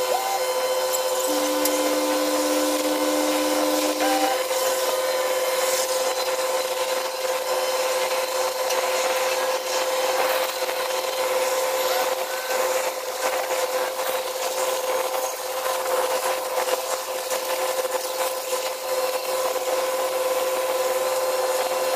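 Steady industrial machinery noise: a constant hum under a rasping hiss, with a brief extra tone joining about a second in for roughly three seconds.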